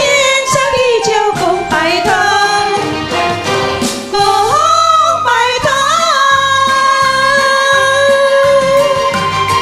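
Two women singing a Mandarin pop duet into microphones over backing music, with a long held note in the second half.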